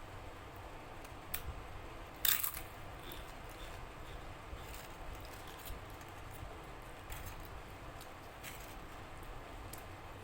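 Faint, scattered clicks and smacks of someone eating a meal of rice and curry, with one louder, brief crackle about two seconds in, over a steady low hiss.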